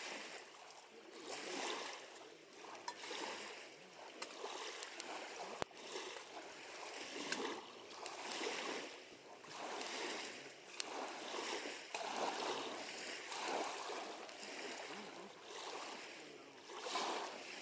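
Small waves lapping at a lakeshore, swelling and falling back about once a second, with a few brief sharp ticks.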